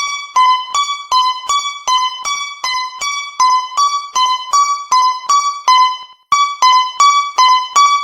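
Japanese railroad crossing alarm bell striking over and over, alternating between two close pitches at about three strikes a second. There is a short break about six seconds in.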